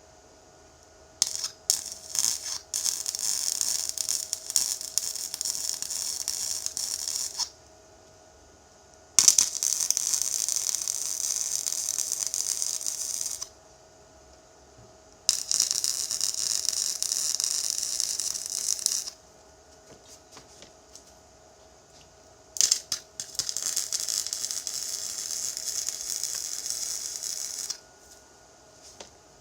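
TIG welding arc burning in four separate runs of several seconds each, a steady hiss with crackle, each run opening with a few short sputters as the arc is struck.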